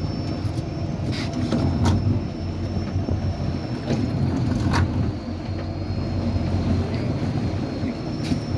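A fishing boat's motor running steadily with a low rumble, with a few sharp knocks or clicks on the boat.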